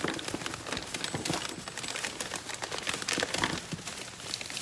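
Plastic toy packaging crinkling and rustling as it is handled, a dense run of small irregular crackles.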